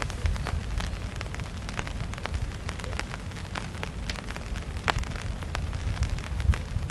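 Scattered raindrops ticking irregularly close to the microphone over a low, steady wind rumble, with one sharper tick just before the fifth second.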